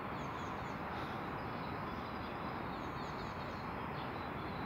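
Outdoor ambience: a steady background rumble with small birds chirping faintly now and then.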